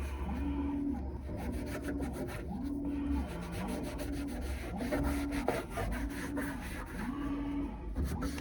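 Rhythmic back-and-forth scrubbing during a furnace cleaning, about one stroke a second, over a low steady hum.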